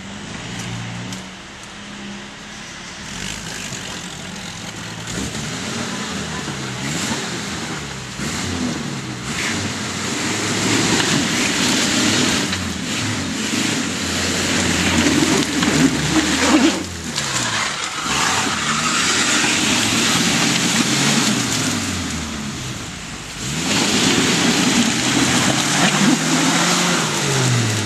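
Off-road 4x4's engine revving up and down under load, its pitch rising and falling again and again. A dense rushing noise joins it from about ten seconds in, and the sound is loudest in the middle and near the end.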